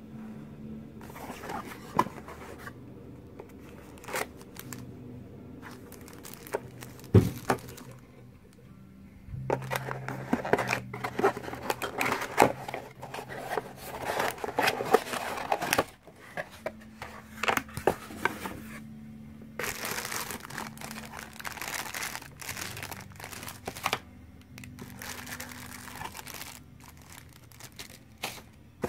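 A dash-cam retail box and its plastic wrapping being handled and opened: cardboard crinkling and tearing, with scattered sharp knocks and clicks. It comes in bursts, busiest in the middle and again a little later.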